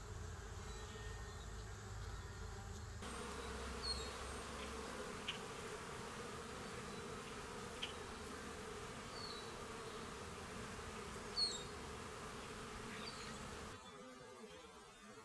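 Honeybees buzzing steadily around their hive, the hum of many bees at once, with a few short high chirps over it.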